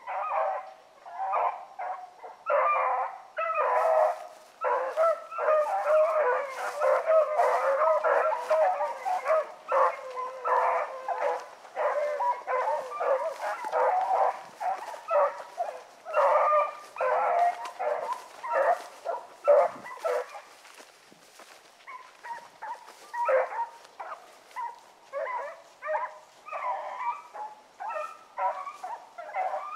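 A pack of rabbit hounds baying on a rabbit's trail, many voices overlapping in full cry, then thinning to fewer, more spaced bays after about twenty seconds.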